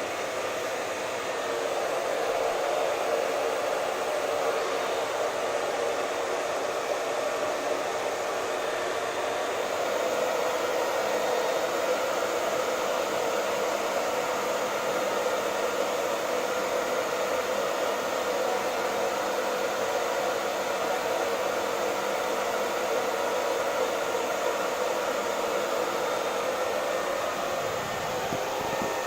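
Hair dryer running steadily, a continuous blowing whir of air with the motor's hum.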